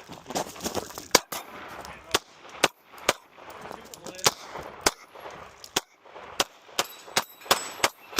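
A 9mm Glock 45 pistol firing a quick, irregular string of shots during a match stage, about two to three shots a second with short pauses between strings.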